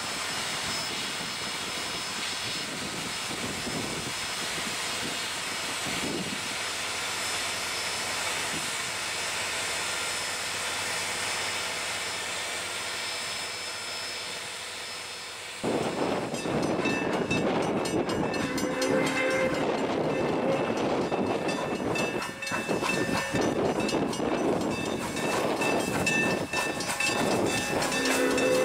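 Steam locomotive No. 4960, a 2-8-2 Mikado, first standing with an even hiss of steam, then after a sudden change, running louder with its steam whistle blowing twice, a few seconds after the change and again near the end.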